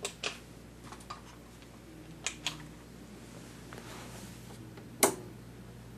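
A few light clicks and knocks, then one sharp click about five seconds in, over a faint steady low hum: the front-panel controls of a 1971 Zenith colour television being handled and the set switched on.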